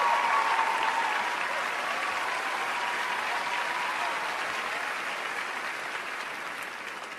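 Large audience applauding, the clapping slowly fading away over the last couple of seconds.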